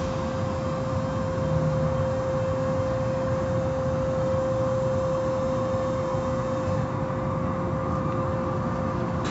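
Automatic car wash heard from inside the car: water spraying and cloth brushes sweeping over the windows, over a steady machine hum. The hiss of the spray eases a little near the end.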